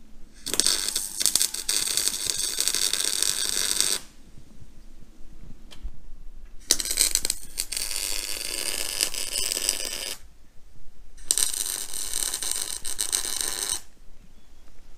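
MIG welder arcing on a steel box-section trailer frame: three weld runs, each a few seconds long, with short pauses between.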